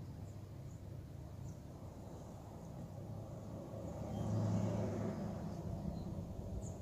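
A vehicle passing on a nearby road: a low sound that swells about four seconds in and then fades, over a faint steady background hum.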